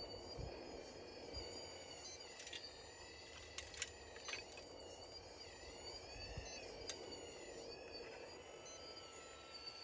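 Faint whine of a model RC excavator's motors, dipping and rising in pitch as the boom and bucket move, with a few scattered sharp clicks.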